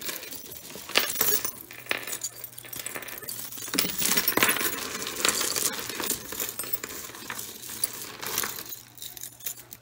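Metal costume jewelry clinking and jangling as a hand rummages through a pile of it, with many small sharp clinks close together.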